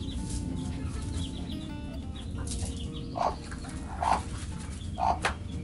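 Chickens clucking in a coop: a few short, separate clucks in the second half over a steady low background.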